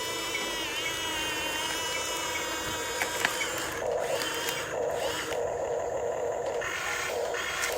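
Small electric motors of a radio-controlled excavator whining as it works: a long steady whine, two sharp clicks about three seconds in, then shorter stop-start whines.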